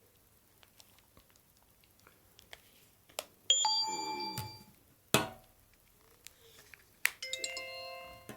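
Two electronic bell-like chimes from a mobile phone, a higher one about three and a half seconds in and a lower one near the end, each dying away over about a second. Faint clicks come before them and a sharp knock falls between them.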